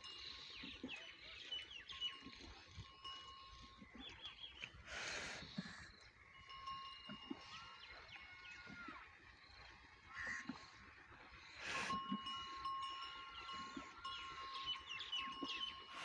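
Water buffalo drinking at a trough, with three short breathy rushes about five, twelve and sixteen seconds in, over steady chirping and whistling of birds.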